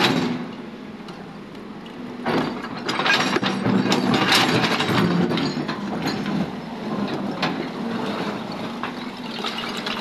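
JCB tracked excavator's steel bucket scraping and scooping broken rock and concrete rubble, the stones grinding and clattering, over the steady run of its engine. The scraping starts about two seconds in, is loudest in the middle and eases off toward the end.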